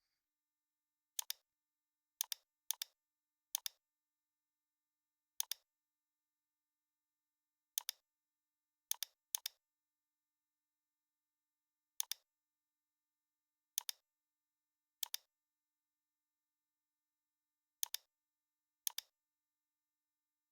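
Computer mouse clicks, about a dozen at irregular intervals, each a quick press-and-release pair, with near silence between them.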